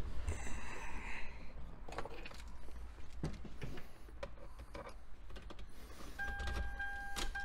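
Faint clicks and rustling of handling inside a Toyota MR2 Spyder's cabin. About six seconds in, a dashboard warning tone starts sounding steadily, broken by short gaps.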